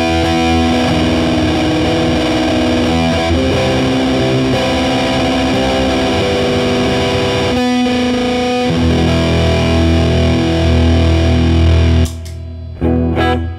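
Electric guitar played through a Big Muff-style fuzz pedal with a Ram's Head tone stack: thick, heavily distorted sustained chords and riffs. Near the end the playing cuts off, then one brief stab of fuzz before it stops.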